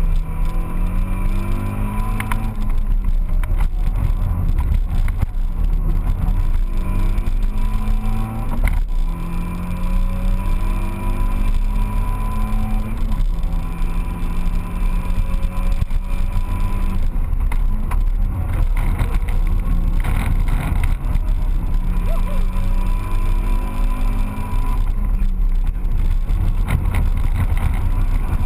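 Car engine heard from inside the cabin during track driving, its revs climbing and then dropping several times as it runs through the gears, over constant road and wind noise.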